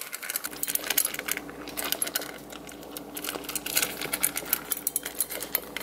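A Pembroke Welsh corgi puppy eating dry kibble from a stainless steel bowl: rapid, irregular crunching and clicking of kibble against the metal.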